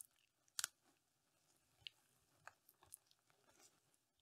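Faint crisp snaps and crunches of side shoots being broken off an eddo (taro) tuber, with moist potting soil crumbling under the fingers. A handful of scattered clicks, the clearest about half a second in.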